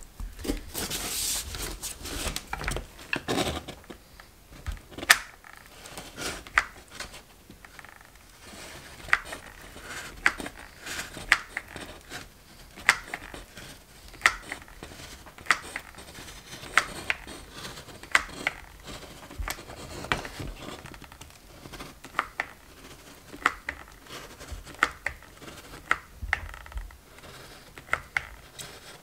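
Hot glue gun's trigger clicking as it is squeezed over and over, about once a second, feeding glue slowly; the owner believes the gun's heating element is failing. Foam board is handled and rubbed during the first few seconds.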